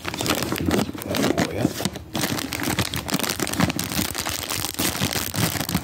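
Plastic snack bag of cheese curls crinkling and crackling continuously as it is handled and tugged at to get it open.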